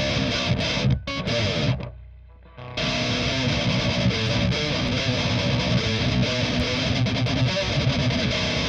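Heavily distorted high-gain electric guitar playing a metal riff. The riff breaks off about two seconds in, leaving only a low note ringing faintly, then comes back in.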